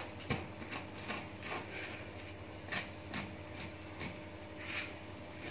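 Sheep's hide being worked and pulled off the carcass by hand during skinning: short, irregular scraping and tearing sounds, roughly one every half second to a second, over a steady low hum.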